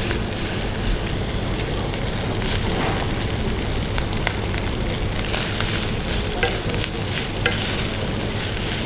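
Food sizzling in a hot pan as cooked rice is stirred into the fried peanuts and spices, with the stirring spoon clicking against the pan a few times.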